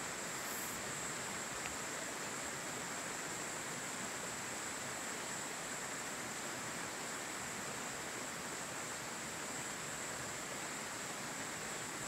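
Steady field ambience: an even hiss with a continuous high, thin insect chorus ringing unchanged throughout.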